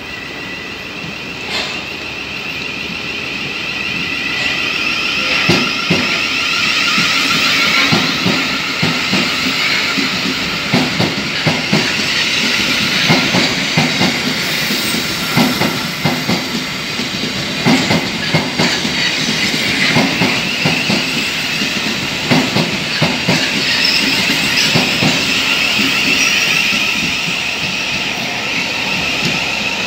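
Thameslink Class 700 electric multiple unit running into the platform and past at close range, getting louder over the first few seconds. Its wheels clack over rail joints in irregular clusters under a steady high-pitched whine and rushing noise.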